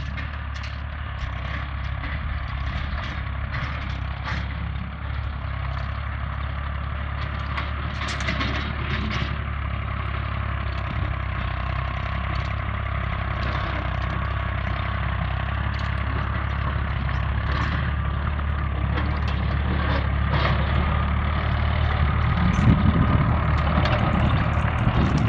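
Small farm tractor's engine running steadily as it pulls a ground-driven John Deere Model L manure spreader, with scattered clanks and rattles from the spreader's working beaters and chain. It grows louder near the end as the rig passes close.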